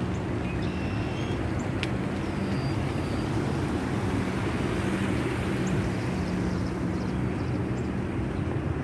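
Steady rush of wind and tyre noise from an electric bike rolling on a packed dirt path, with a low steady hum running under it. A few faint bird chirps and a single sharp click about two seconds in.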